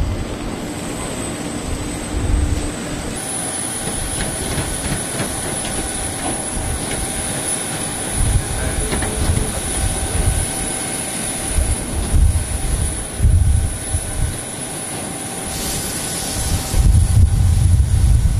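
Steady high-pitched whine from a parked jet airliner, with gusts of wind buffeting the microphone in low rumbles every few seconds.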